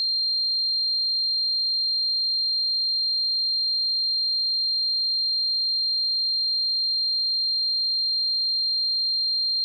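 Tinnitus sound effect: a single high-pitched pure tone ringing steadily without any change, imitating the ringing in the ears of tinnitus.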